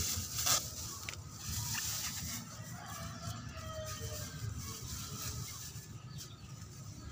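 A clear plastic bag crinkling and rustling in bursts as it is handled and wrapped around a cut papaya trunk, with a rooster crowing faintly in the background.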